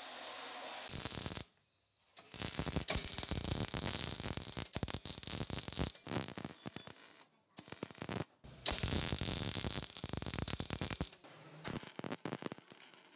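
Combination belt/disc sander grinding a steel hammer head for about the first second. Then, after a short pause, a MIG welder crackling in about five bursts of one to three seconds each, welding up holes and cracks in a forged mason's hammer head.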